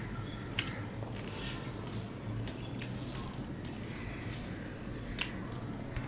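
Fingers mixing rice and curry by hand on a stainless-steel plate: soft wet squishing with a few sharp clicks, over a steady low hum.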